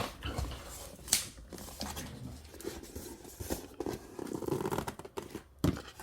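Handling of a cardboard box and its packaging: light rustling with scattered sharp clicks, the loudest about a second in.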